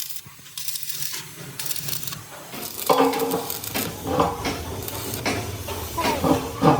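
Scattered clinks and knocks of metal on metal.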